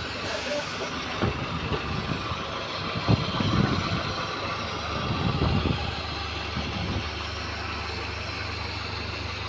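Volvo B5LH hybrid bus's diesel engine running with an exhaust leak, giving uneven low pulses that are strongest midway, then settling into a steady low hum about seven seconds in.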